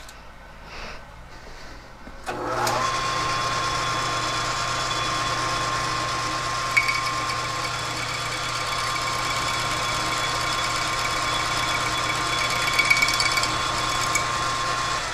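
Metal lathe switched on about two seconds in, spinning the aluminium clutch housing in its chuck with a steady motor hum and a steady whine, then shut off and winding down at the end. The cutting tool has not yet bitten into the face, so this is mostly the lathe running free, with a couple of faint ticks.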